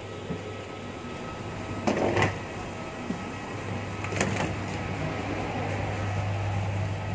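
Steady low hum inside an airport jet bridge as passengers walk through it with wheeled luggage. Two brief clattering knocks come about two seconds and four seconds in.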